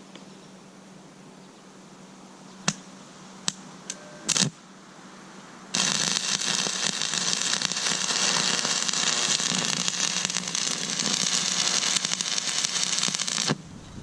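A few short clicks, then an arc-welding arc crackling and hissing steadily for about eight seconds before cutting off suddenly: a stick welder (buzz box) laying a tack weld.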